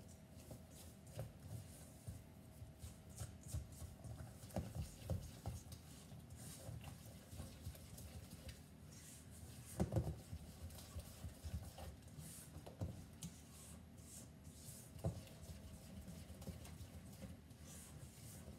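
A utensil stirring thick, lumpy wet cookie mixture in a stainless steel mixing bowl: faint, irregular knocks and scrapes against the bowl, with a louder cluster of knocks about ten seconds in.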